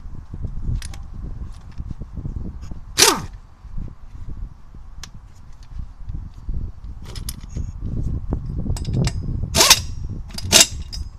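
Harbor Freight Earthquake XT air impact wrench, driven at 125 PSI, hammering on a rusty lug nut in short bursts: one sharp burst about three seconds in and two more near the end, with lighter metal clicks between.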